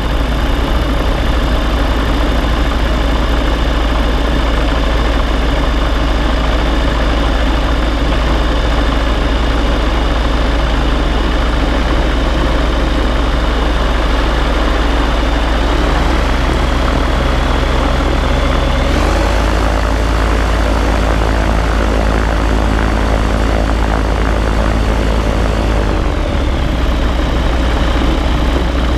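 Ranger gyrocopter's engine and pusher propeller running steadily while the gyro taxis. The engine note changes about two-thirds of the way through and changes back near the end.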